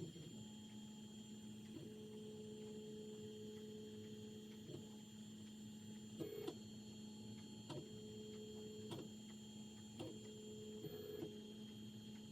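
Small desktop 3D printer (LABISTS X1 Mini) running, its stepper motors giving a faint steady hum whose pitch shifts between moves, with faint clicks every second or so.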